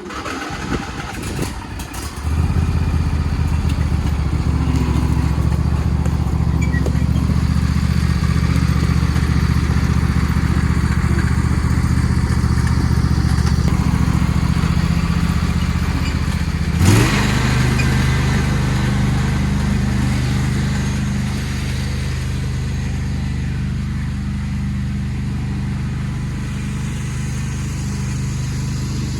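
Engine of a John Deere tractor carrying a welding rig, running steadily at a constant speed. About 17 seconds in there is a brief rising sweep, after which it runs on at a slightly different pitch and a little quieter, as if pulling away.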